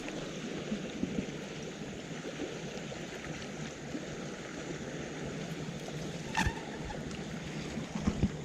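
Steady rush of river water and wind on the microphone, with one sharp click about six seconds in.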